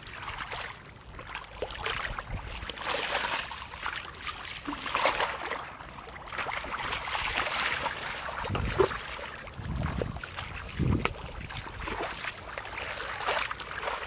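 Irregular splashing and sloshing of muddy shallow water as hands and legs churn through the mud, with a few heavier, deeper splashes about two thirds of the way through.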